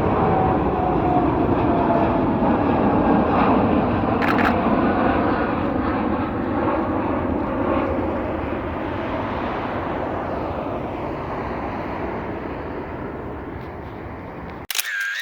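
Jet airliner's engines on take-off, a loud steady roar with a falling whine that slowly fades as the aircraft climbs away. A short burst of DSLR shutter clicks comes about four seconds in. The sound cuts off abruptly near the end.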